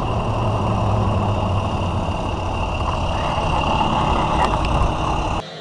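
International 7300's DT466 inline-six turbodiesel running close by at low speed, a loud steady engine note. It cuts off shortly before the end.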